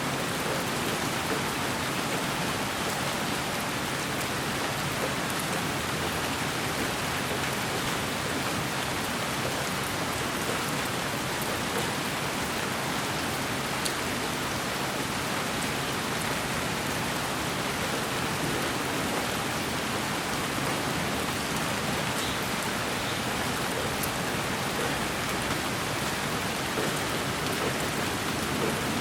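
Steady, rain-like white noise for lulling a baby to sleep: an even hiss spread from low to high pitches, with a few faint scattered ticks and no change throughout.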